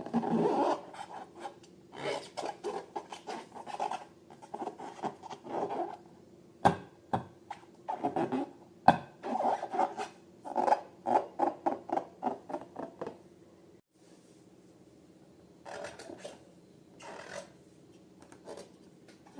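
Rubber balloons and slime being handled: irregular rubbing and scraping strokes with two sharp snaps near the middle, thinning out to a few quieter strokes in the last third.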